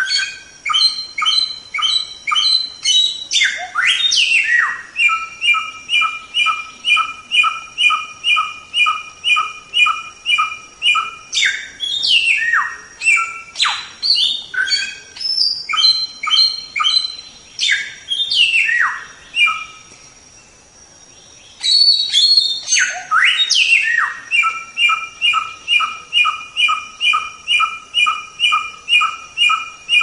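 Samyong songbird singing: long runs of clear whistled notes repeated about twice a second, alternating between a higher and a lower pitch. The runs are broken by quick downward-sweeping calls, and the song pauses briefly a little past two-thirds of the way through.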